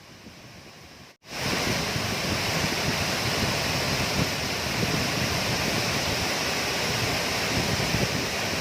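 Waterfall rushing: a steady noise of falling water. About a second in, the sound cuts abruptly from a fainter rush to a much louder, closer one.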